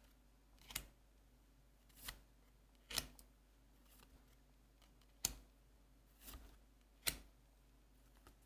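Trading cards being slid one off another from a hand-held stack: a faint series of about six short swishes and snaps, roughly one per card, some sharp and clicky, some softer.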